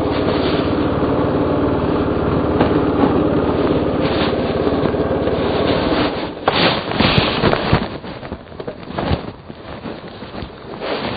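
A dirt bike engine running steadily and close by, which cuts out about six seconds in. After it stops come irregular scrapes and sharp knocks.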